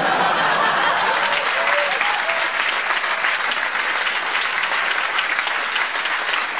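Audience applauding: many hands clapping at once, dense and steady.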